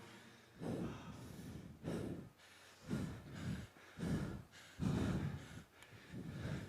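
Heavy breathing picked up by microphones: performers panting, a deep breath roughly once a second, out of breath right after finishing a song.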